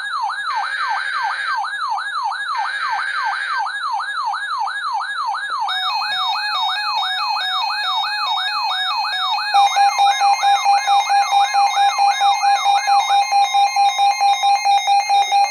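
Emergency alert siren: a fast falling wail repeating about twice a second, with short buzzy data bursts at the start and more alarm tones layered in. About nine seconds in, a loud steady alert tone takes over, pulsing about four times a second.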